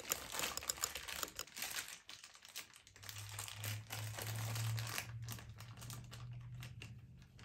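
Crinkling and crackling of a black foil blind bag being torn open by hand to get at a mystery mini figure, in many small clicks. A low steady hum comes in about three seconds in.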